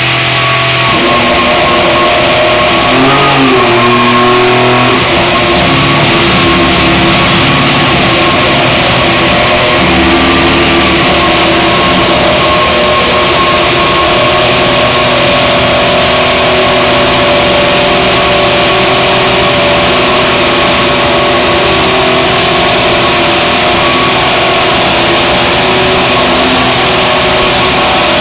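Mercedes 1.6-litre turbocharged V6 hybrid power unit of a 2014 McLaren-Mercedes Formula 1 car running steadily during its warm-up, with a brief rise and fall in revs about three seconds in.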